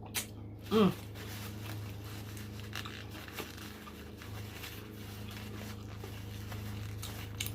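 Mouth sounds of someone chewing a fried chicken nugget: scattered wet smacks and clicks, with a short hummed "mm" just under a second in, over a steady low hum.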